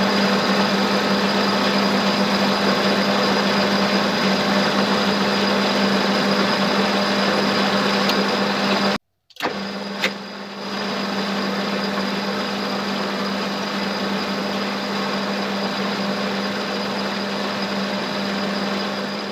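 Metal lathe running with a steady hum, turning a cast aluminium-bronze (CuAl5) spinning top held between the chuck and a tailstock live centre, with the sound of the cutting mixed in. The sound cuts out for an instant about nine seconds in and then carries on unchanged.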